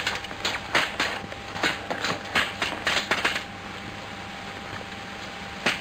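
Sabre blades clashing in a fencing bout: a quick run of about ten sharp metallic clicks over the first three and a half seconds, then one more clash near the end, over the steady hiss of an old film soundtrack.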